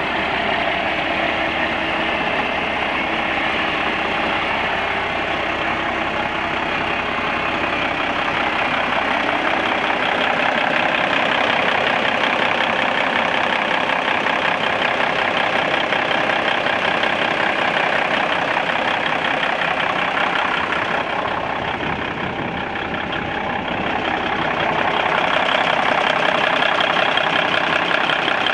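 The diesel engine of a 1997 Volvo semi truck idling steadily, heard close up from the engine bay.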